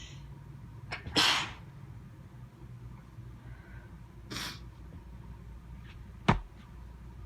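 A person sneezing during a drawn-out, itchy sneezing fit. About a second in comes one loud sneeze, about half a second long. A shorter, quieter burst of breath follows around four seconds in, and a single sharp knock comes near the end.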